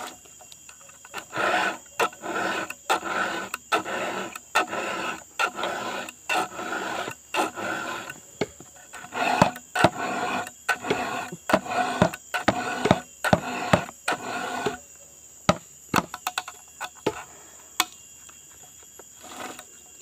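Round file rasping across the cutters of a chainsaw chain in quick, repeated hand strokes, about one and a half a second, sharpening the chain. The strokes stop about three-quarters of the way through, leaving only a few scattered light clicks.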